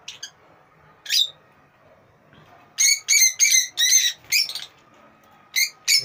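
Rosy-faced (peach-faced) lovebirds chirping in short, shrill calls: a single call about a second in, a quick run of about six calls in the middle, and two more near the end.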